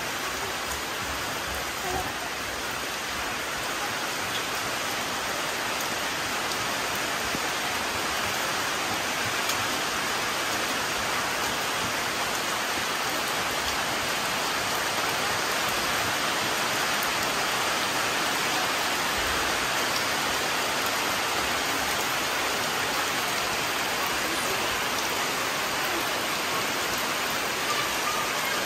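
Steady rain falling on tree leaves and wet ground, an even hiss of drops.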